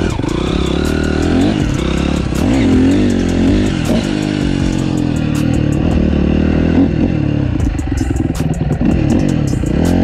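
Four-stroke Honda CRF250 dirt bike engine heard on board while being ridden, its pitch rising and falling over and over as the throttle is opened and closed.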